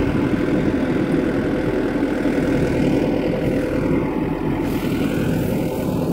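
Crawler-track (chain-type) combine harvester running steadily at close range while harvesting paddy: the diesel engine and threshing machinery make a constant, loud hum.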